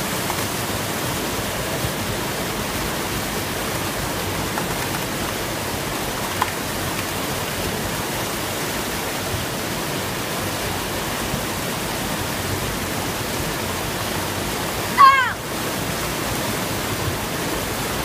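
Creek water pouring steadily over a low concrete weir and down a small foaming cascade. About three-quarters of the way through, a brief high-pitched cry rises above the rush of water.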